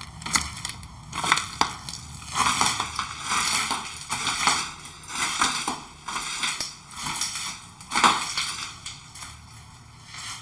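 Irregular crunching and crackling, in bursts of about half a second to a second that come and go.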